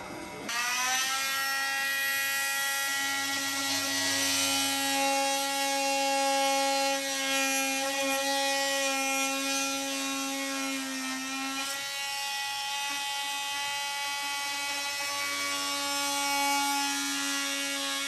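Ryobi oscillating multi-tool running with a plunge blade, cutting a hole through a caravan's side wall. It makes a steady, high buzz that starts about half a second in and dips slightly in pitch midway as the blade bites.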